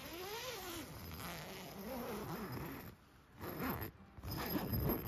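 A dog whining in long whimpers that rise and fall in pitch. Then, in the second half, the nylon tent's door zipper is pulled open in a few quick strokes.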